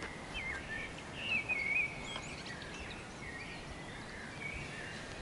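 A songbird singing: quick warbled whistling phrases and chirps, over faint outdoor ambience.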